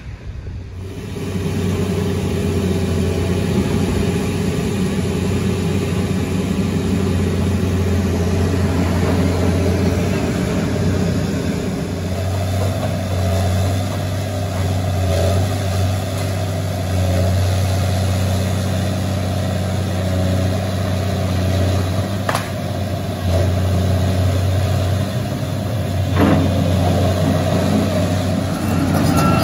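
Diesel engine of a Volvo tracked excavator running at a demolition site, its note rising and falling as it works, with two sharp knocks of debris in the latter part.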